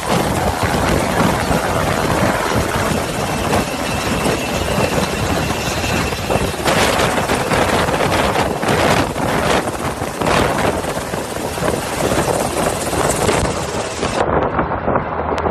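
Black Hawk medevac helicopter hovering low overhead, its rotor and turbines running loud and steady with a rhythmic blade beat, mixed with rushing river water and downwash noise. Near the end the sound turns duller.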